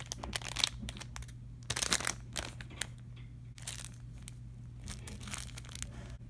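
Plastic packaging crinkling and rustling in irregular bursts as hands unwrap a squishy toy from its clear plastic wrapper.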